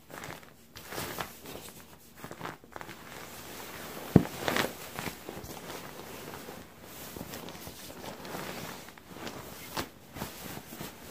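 Fabric of a UGQ Bandit quilt and a sleeping pad rustling and shuffling as a person climbs into the quilt and settles onto the pad, with one sharp thump about four seconds in.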